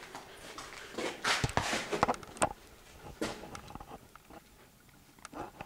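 A cluster of sharp knocks and clicks with short scuffing noises, strongest from about one to two and a half seconds in, and one more scuff near the three-second mark.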